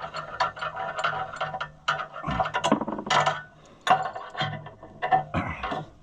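Hand ratchet wrench clicking rapidly as a bolt is run in, followed by several separate metallic clanks of tools against the tractor. A steady tone runs underneath.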